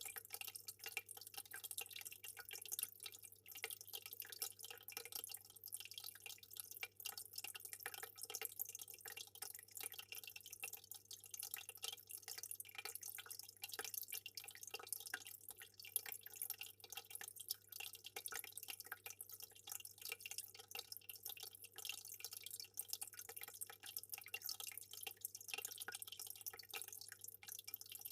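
Aquarium water trickling and dripping in a continuous stream of small splashes and bubbles, with a steady low hum underneath.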